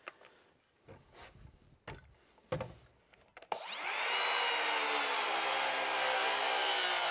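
Makita XSR01PT 18V X2 (36V) cordless rear-handle circular saw. A few soft handling knocks come first, then about three and a half seconds in the motor spins up with a rising whine and runs steadily as the blade cuts a bevel through lumber. The saw slows a little under the load of the cut and has to be eased off slightly.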